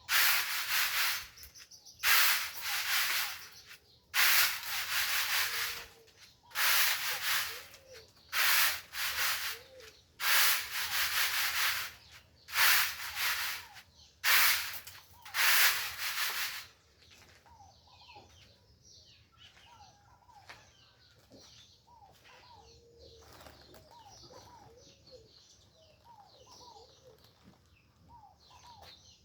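About ten loud, scratchy rubbing bursts of a second or so each, coming every second or two. After about 17 seconds they stop, and birds are heard chirping and calling softly, with many short notes that rise and fall.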